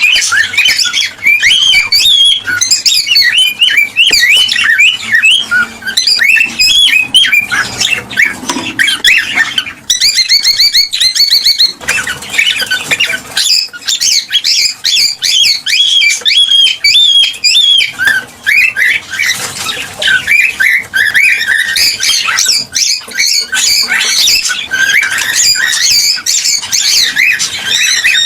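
Cockatiels chirping and whistling rapidly and continuously, with a buzzy trill about ten seconds in.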